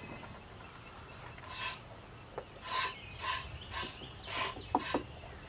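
Goat being hand-milked with one hand: short hissing squirts of milk hitting the pot, one per squeeze, about two a second.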